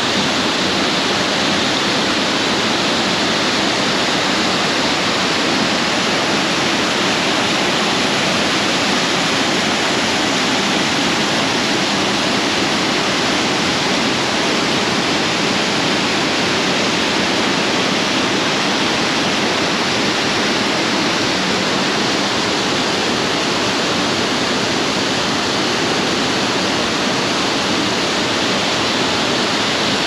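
A 70-foot waterfall rushing, a loud and unchanging wash of falling water.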